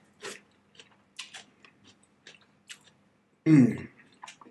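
Close-up chewing of a forkful of Caesar salad, with scattered short wet mouth clicks and smacks. About three and a half seconds in, a short hummed 'mm' of the voice.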